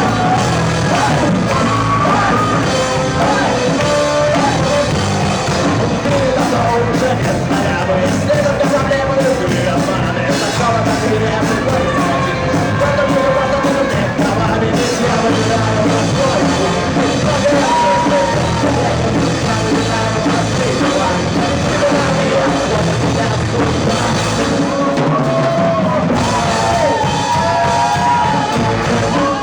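A live rock band playing, with a vocalist singing a melody over the band.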